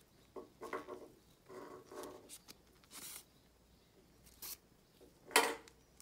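Sewing thread drawn through grosgrain ribbon with a hand needle: short rasping pulls, the loudest near the end, over faint background noises.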